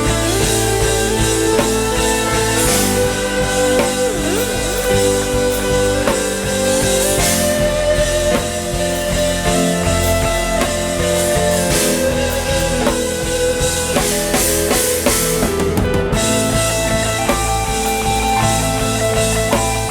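Instrumental worship music with a band: a drum kit with cymbals keeping a steady beat under sustained guitar and keyboard chords.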